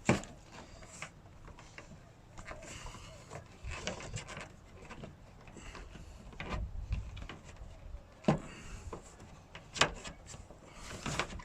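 Scattered knocks, rattles and clicks of hands working on a car door's trim and fittings, with three sharp clicks: one right at the start, one about eight seconds in and one about ten seconds in.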